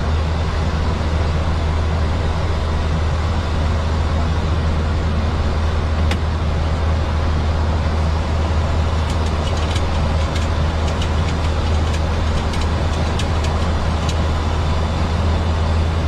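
Boeing 737 flight deck noise during the climb after takeoff: a steady rush of airflow over a constant low drone, with a scatter of sharp ticks in the second half.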